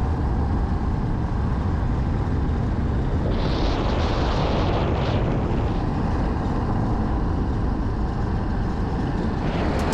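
Riverboat engine running with a steady low drone. A short hiss rises over it about three and a half seconds in and fades out a second and a half later.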